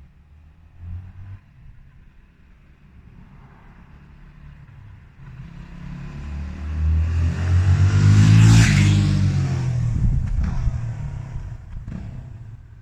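Yamaha WR250X's 250 cc single-cylinder four-stroke engine on the stock exhaust as the bike rides past. It grows louder, is loudest about eight seconds in, then drops in pitch and fades away.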